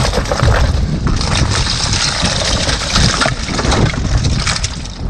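Gill-net catch of shells, starfish, crabs and muddy debris spilling out of the net and clattering onto a small fishing boat's wet deck as the net is hauled aboard by hand.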